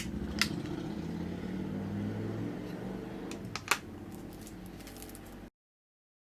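A motor running with a steady low hum whose pitch shifts a little, with a few light clicks over it; the sound cuts off abruptly to dead silence about five and a half seconds in.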